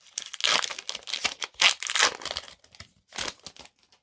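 Foil Pokémon booster pack wrapper crinkling and being torn open by hand: a dense crackle for about two and a half seconds, then a shorter burst of crinkling before it goes quiet near the end.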